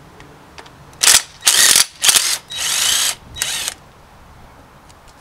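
A ratchet being worked in quick strokes: five loud runs of rapid clicking, the later ones longer, between about one and four seconds in.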